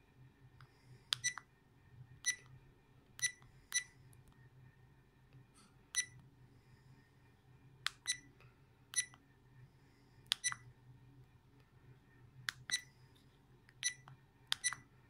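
FITFORT 4K action camera giving short high beeps as its settings menu is stepped through, one beep per press. There are about fourteen at irregular intervals, some in quick pairs.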